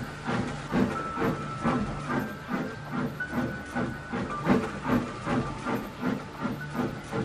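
Steam locomotive chuffing steadily, about three chuffs a second, with a hiss of steam.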